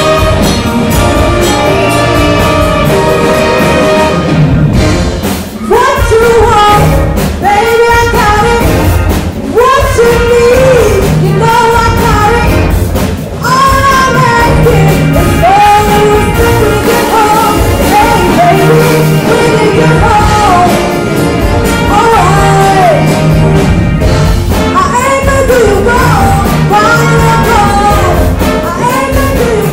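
A high-school jazz band of saxophones, trumpets, electric guitars, keyboard and drums playing a pop-style cover, recorded live in a hall. A young woman's lead vocal comes in over the band about five seconds in and sings on.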